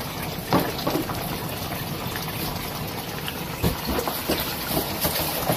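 Soup bubbling in a metal pot on a gas cooker, under a steady hiss, with a few short knocks of the stirring spoon against the pot.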